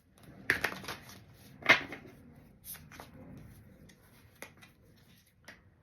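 Tarot cards being handled: a few sharp snaps of card stock, the loudest a little under two seconds in, then lighter ticks as cards are flicked and laid down.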